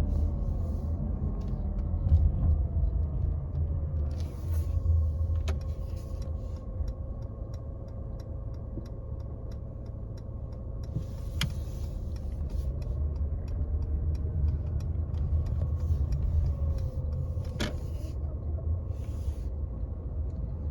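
Mercedes-Benz W205 C-Class on the move, giving an abnormal noise while driving: a steady low rumble with a tone that drifts up and down in pitch, and many small ticks with a few sharper knocks.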